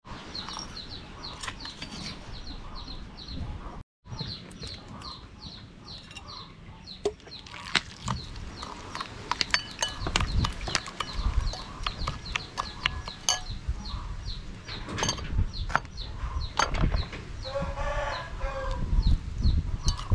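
Metal spoon stirring and scraping a thick sauce against a ceramic bowl, with frequent light clinks. Steady high chirping runs behind it, about three chirps a second, and a chicken calls near the end.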